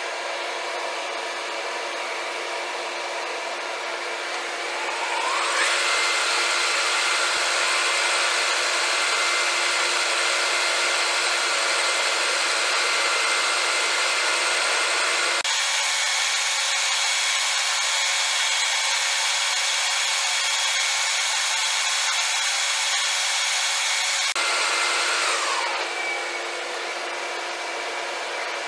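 Metal lathe spindle spinning up with a rising whine about five seconds in and running steadily while a twist drill in the tailstock chuck drills the end face of the workpiece under coolant. Near the end it winds down with a falling whine, leaving a steady machine hum like the one at the start.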